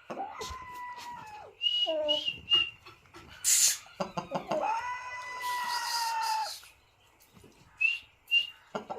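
Birds calling: two long, drawn-out calls of about two seconds each, with short high chirps and a brief harsh burst between them.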